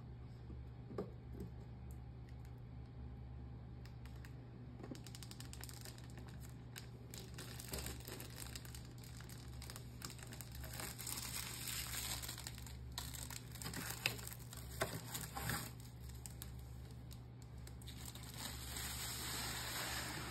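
Thin clear protective plastic film being peeled and pulled off an RC truck's plastic body, crinkling and crackling, with a few sharp clicks of handling; busier in the second half.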